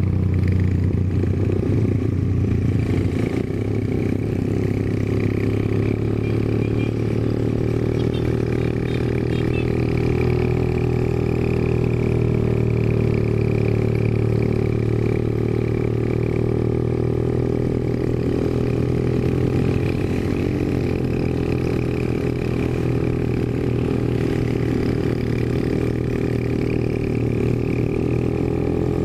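Honda GL Pro motorcycle's single-cylinder four-stroke engine running at a steady, even pace.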